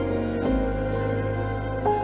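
Slow, sad background music of held string-like notes, changing chord about half a second in and again near the end.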